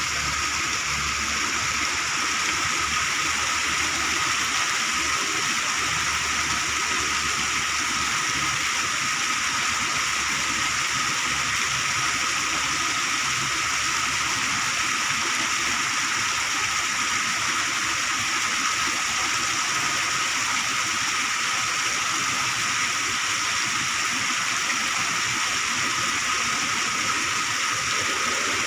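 Water gushing steadily out of a concrete culvert: a continuous, even rushing with no change.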